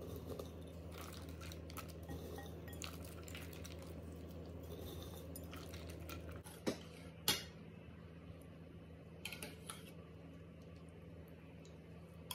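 Metal spoon and glass dishes clinking and tapping, with light scattered taps, then two sharp clinks about seven seconds in and a few lighter ones after, over a steady low hum.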